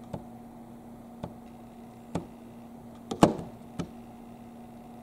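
Fingertip tapping about six times, at uneven spacing, on the touch-sensitive ON/OFF button of a Polder digital kitchen scale's glass display; the loudest tap comes a little after three seconds in. The presses are repeated because the touch button is not switching the scale off.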